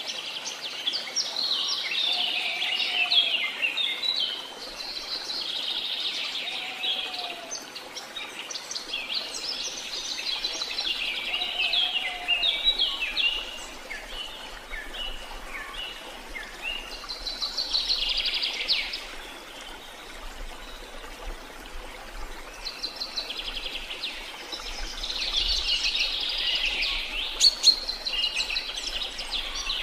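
Songbirds singing, with quick high chirps and trills that come in bursts every few seconds.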